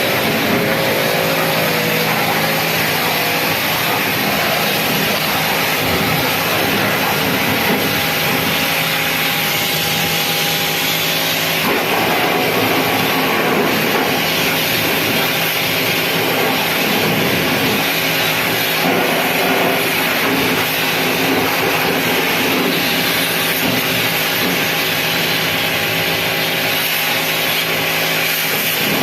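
Steady machine noise with a loud, even hiss and a low hum underneath, unbroken throughout.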